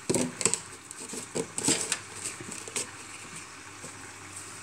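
A few sharp clicks and rattles in the first two seconds as a container of dried oregano is handled over the pan, over the steady low sizzle of tuna steaks frying in olive oil.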